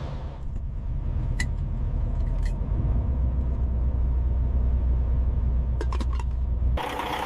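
Truck driving on the road: a steady low engine and road rumble, with a few faint clicks.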